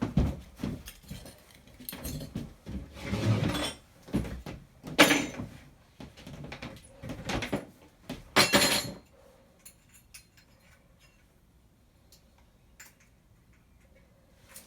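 Knocks, clatter and rustling of tools and gear being handled and rummaged through, with the sharpest knocks about five and eight seconds in. After about nine seconds there are only faint scattered ticks.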